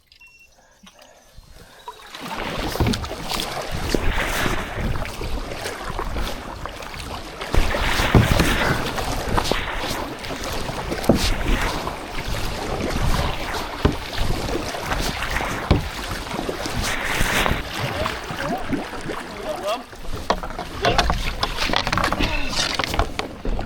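Kayak paddling: water splashing with the paddle strokes and wind buffeting the microphone, starting about two seconds in.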